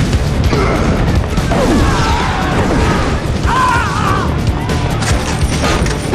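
Film action-scene soundtrack: driving score music under a fight, with booms, crashes and hard impacts.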